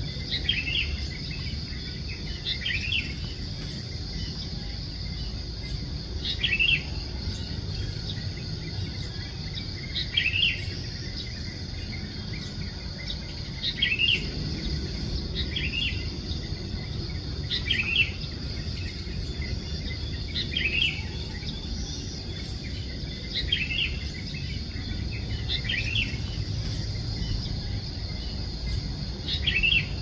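A garden bird giving short two-note chirps, repeated every one to four seconds, over a steady high-pitched insect drone.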